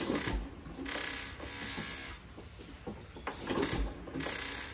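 1923 Fairbanks Morse 1½ hp hopper-cooled hit-and-miss engine being turned over by hand at its flywheels with the ignition off and the choke fully on, drawing fuel up without firing. There are several short rushes of hiss with mechanical rattling, and two low thumps about three and a half seconds apart.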